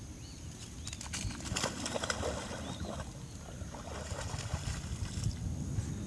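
Border collie splashing as it wades and bounds through shallow rainwater, an irregular run of splashes from about a second in until shortly before the end.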